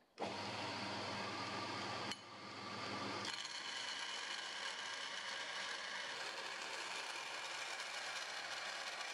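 Belt grinder running steadily, a steel knife blank pressed against its abrasive belt to grind the profile, with a low motor hum under the grinding noise. The sound changes abruptly about two seconds and three seconds in.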